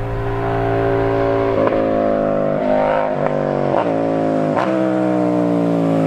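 KTM 790 Duke's parallel-twin engine approaching under acceleration, its exhaust note rising steadily in pitch. The note is broken by several short, sharp cracks.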